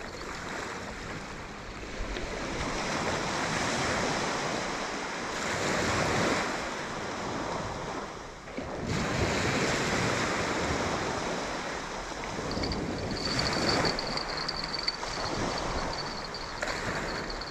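Surf breaking and washing up the beach, rising and falling in swells every few seconds, with some wind on the microphone. A faint, thin high whine runs through the last few seconds.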